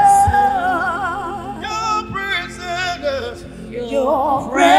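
Live gospel worship singing: voices hold long notes with vibrato over the band, dropping back in the middle and swelling again near the end.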